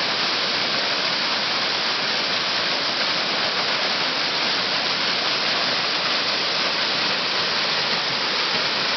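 Steady rushing of water from a waterfall and the fast-flowing creek rapids below it.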